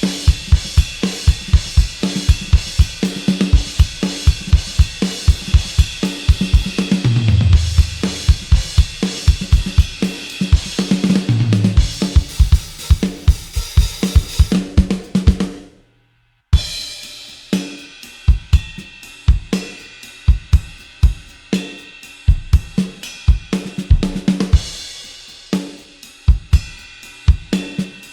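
Sampled Ludwig Keystone rock drum kit from the EZdrummer 3 Vintage Rock EZX library, playing a steady beat of kick, snare and washy cymbals. Tom fills run down the toms twice, about 7 and 11 seconds in. The drums stop for about half a second near the middle, then a second groove starts with tighter hi-hat.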